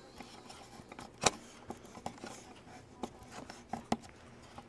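Dog licking ice cream from a bowl: irregular sharp clicks and knocks of tongue and teeth against the bowl, the loudest about a second in.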